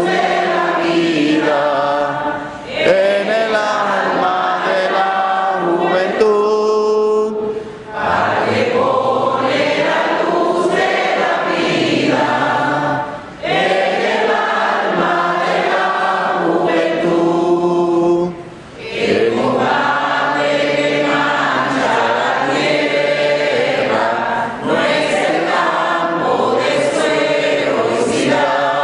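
Choir singing a Spanish-language hymn in praise of the teacher, line by line, with short breaks between phrases.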